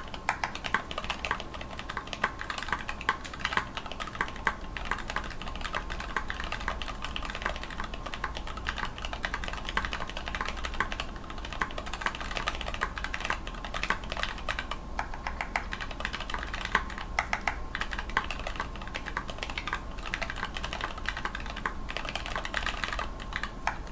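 Typing on a mechanical keyboard with linear black switches: Cherry retooled PCB-mount lower housings with Greetech black tops and stems, lubed with Tribosys 3204 and fitted with 72 g springs. A fast, continuous run of irregular keystroke clacks with a few short pauses.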